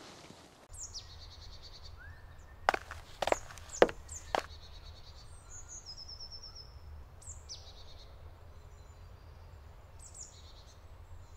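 Birds chirping and trilling, with a steady low rumble underneath. Around three seconds in come four sharp knocks about half a second apart.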